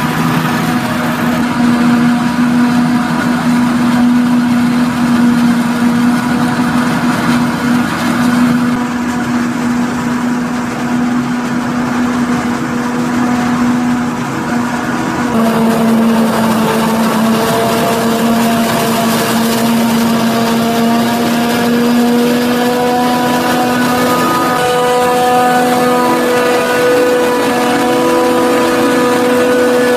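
Big diesel engines of farm machines running steadily: a tractor hauling a loaded forage wagon, and a Claas Jaguar forage harvester. The engine note changes about halfway through and again near the end.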